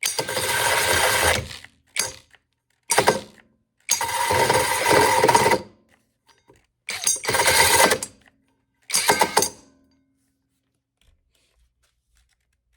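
Mellif 12-volt cordless drill driving a 5-inch hole saw into wood in about six short bursts, each up to a couple of seconds long, stopping between them.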